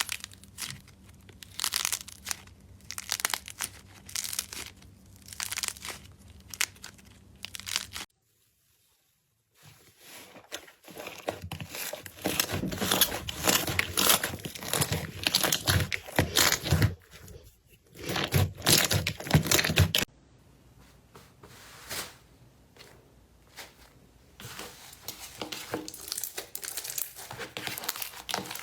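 Slime being squeezed, poked and stretched by hand, making repeated crackling, crinkling bursts. There is a brief dead gap about a third of the way in, and the crackling is loudest in the middle section.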